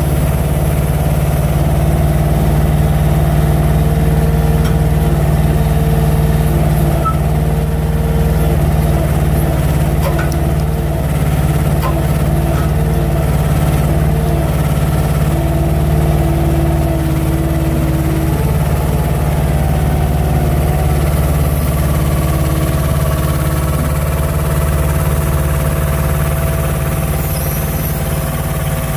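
Crane truck's diesel engine running steadily while its loader crane works a hydraulic slab clamp, with higher tones coming and going over the even engine note.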